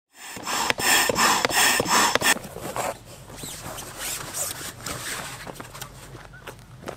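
A rubber floor mat being dragged and rubbed against an inflatable boat's tubes: about five loud scraping strokes in the first two seconds, then quieter rustling and light taps as it is pressed into place.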